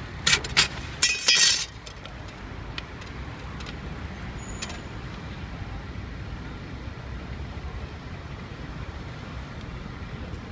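A few sharp clinks and clatters close together in the first two seconds, then steady street traffic noise.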